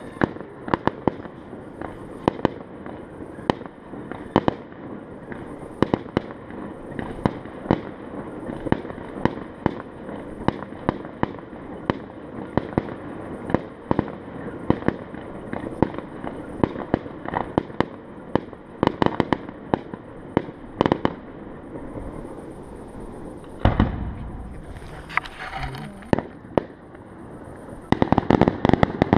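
Fireworks going off: a steady run of sharp bangs and pops, one after another. There is a heavier, longer boom about 24 seconds in, and a fast cluster of bangs near the end.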